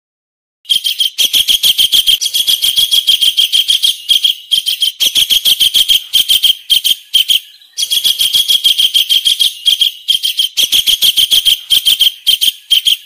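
Kingfisher call: a loud, rapid run of sharp, high notes repeated many times a second, starting just under a second in, with a short break a little past halfway before it resumes.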